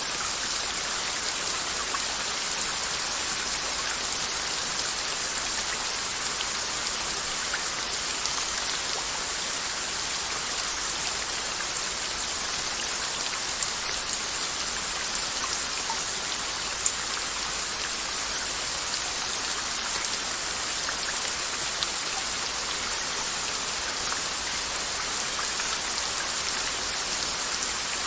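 Steady rain falling, an even hiss of drops with scattered sharper drop ticks and a few louder ones near the middle.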